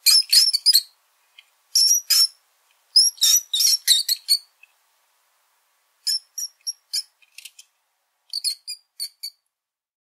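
Small rodent squeaking: rapid high-pitched squeaks in five short bursts, with pauses of about a second between them.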